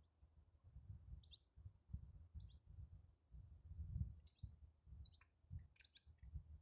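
Quiet outdoor ambience: wind buffeting the microphone in uneven low gusts, with faint short chirps of small birds scattered throughout.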